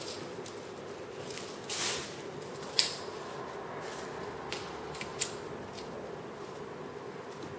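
A kitten at play on a tiled floor: a brief rustle about two seconds in, then a sharp click and a few lighter clicks and taps, over a steady background hum.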